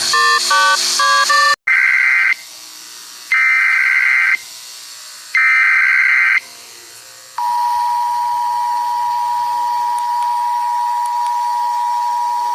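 Emergency Alert System alarm: the last few beeps of a short stepping electronic tone sequence, then three buzzy digital header bursts about a second apart, then from about seven seconds in the steady, harsh two-tone EAS attention signal.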